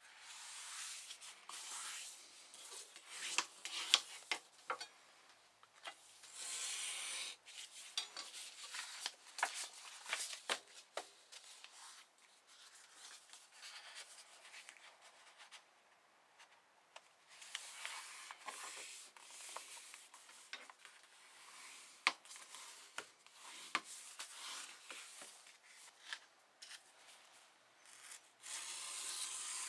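Sheets of paper being folded and handled by hand: palms rubbing down the folds and paper sliding and rustling on the bench. Swishes of about a second come and go, mixed with many short crackles and taps of the stiff paper.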